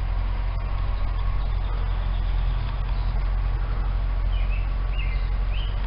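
An engine idling steadily with a low, even rumble. A bird chirps a few times in the latter part.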